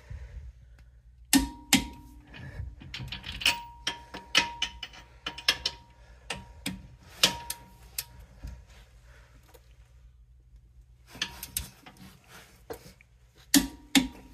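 Ratcheting clicks and metal clinks from a click-type torque wrench tightening leaf-spring U-bolt nuts on a rear axle to about 90 foot-pounds. The clicks come in irregular strokes, some followed by a short metallic ring, with a lull partway through and a quicker run near the end.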